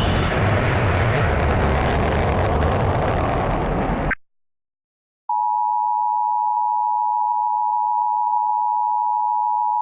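A cartoon rocket's blast-off rumble, a loud rushing noise, cuts off abruptly about four seconds in. After a second of silence the Emergency Alert System attention signal starts: a steady, unbroken two-note tone, signalling an alert broadcast, here a national test.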